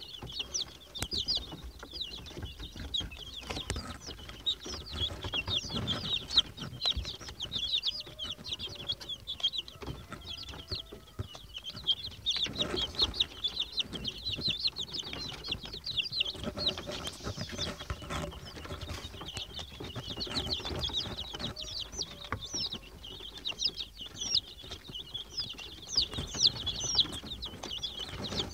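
A brood of Rhode Island Red chicks peeping without pause, many short, high, downward cheeps overlapping one another, with scattered knocks among them.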